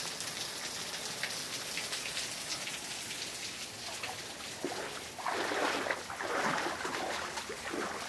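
Thin waterfall spattering down a rock face: a steady hiss of falling water and drops, much like rain, with a louder, uneven stretch of sound about five seconds in.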